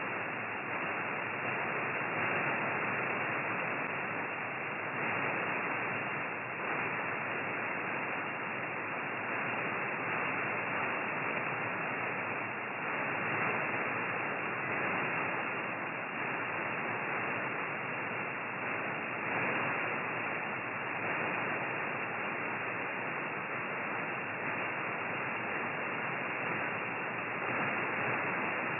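Shortwave radio static: steady, slightly wavering hiss of 20-metre amateur band noise from an SDRplay RSP1A receiver in single-sideband mode, with no station transmitting on the frequency.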